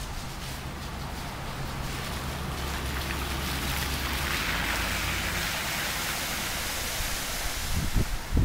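An SUV driving through shallow floodwater: a low engine hum and the swishing hiss of tyres pushing through water, which builds to its loudest about halfway. Wind buffets the microphone near the end.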